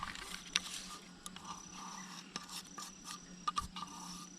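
Light scraping and irregular clicks of a spoon against a container as a yeast and sugar mix is worked into flour for bread dough.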